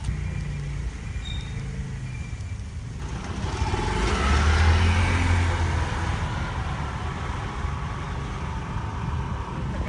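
A motor scooter passing close by on a street, swelling up about four seconds in and fading away again, over a steady low rumble of street noise.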